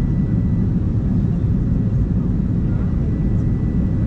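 Steady airliner cabin noise aboard an Airbus A380: an even low rumble of airflow and engines, with a faint steady high whine above it.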